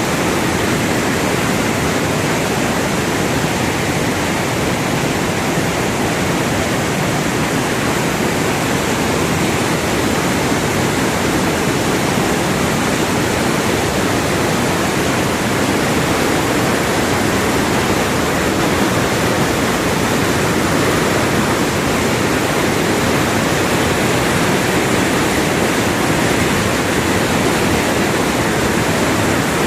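Waterfall swollen with rainwater, a heavy, steady rush of falling and churning water.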